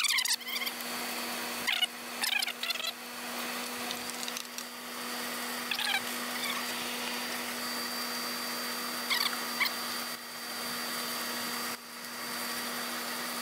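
A few short metallic clicks and light rattles from parts of a Kawasaki lawnmower engine's carburetor and throttle linkage being handled and fitted, over a steady low electrical hum.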